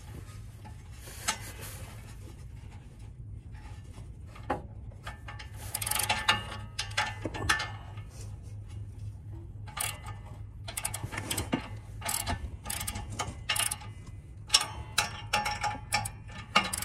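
Hand ratchet wrench clicking in short, irregular runs of strokes as flange bolts and nuts on a new catalytic converter are snugged down by hand before power tightening.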